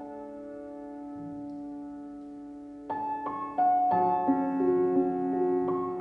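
Slow background piano music: held notes fading away, then new notes struck one after another about three seconds in.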